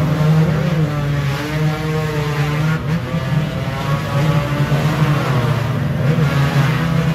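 Dirt bike engine revving hard while its rear wheel spins in deep mud, the bike stuck and being pushed out, the revs rising and falling.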